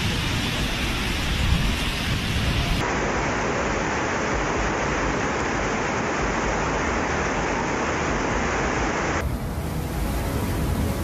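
Floodwater rushing through flooded streets with heavy rain: a loud, steady noise that changes abruptly about three seconds in and again about nine seconds in.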